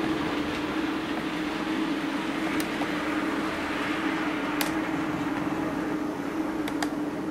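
Model railway train running on the layout: a steady motor hum with rolling noise from the wheels, and a few sharp clicks, four in all.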